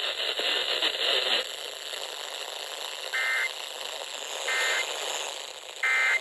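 Radio static hiss, then three short, identical data bursts about a second apart: the EAS SAME end-of-message code that closes an emergency alert broadcast.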